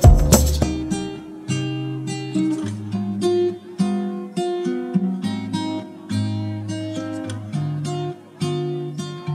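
Background music: acoustic guitar picking single ringing notes, after a louder strummed passage with percussion that ends about half a second in.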